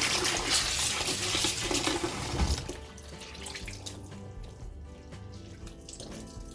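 Kitchen tap running onto soaked taro stems in a pan while hands rinse them, with splashing. The running water stops about two and a half seconds in, leaving softer wet sounds as the stems are squeezed out.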